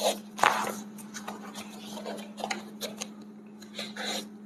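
Irregular rubbing and rustling with a few soft clicks, hands moving on skin and clothing, over a steady low hum.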